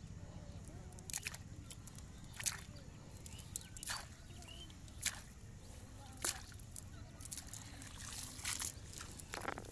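Water sloshing and splashing as a wet cast net is lifted and shaken in shallow pond water: a string of short splashes roughly once a second, with water dripping from the mesh.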